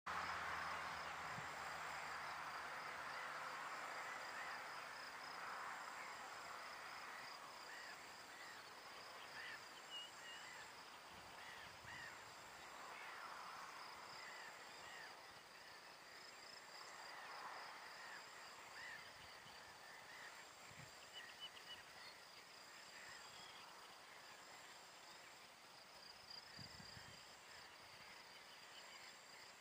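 Faint meadow ambience: insects chirring steadily, with one repeating a short chirp about once a second, and birds giving small scattered calls. A soft rustling hiss is strongest at the start, and a few soft low thumps come through.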